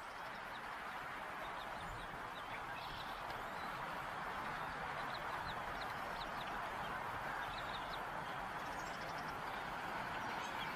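Faint, short, high chirps of a bald eagle chick scattered over a steady rushing hiss.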